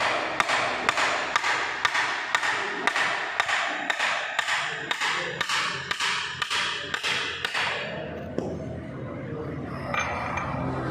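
Repeated hammer strikes at an even pace of about two a second, which stop about two-thirds of the way through, leaving a quieter background.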